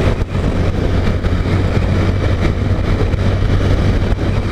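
Honda CG 150 Titan's single-cylinder engine running at a steady cruising speed of about 80 km/h, a constant low hum under rushing road and wind noise.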